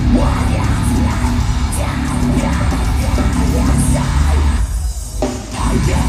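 Live metalcore band playing: heavy distorted electric guitars, bass and drums under a vocalist's shouted vocals. The band breaks off for a moment near the end, then comes back in.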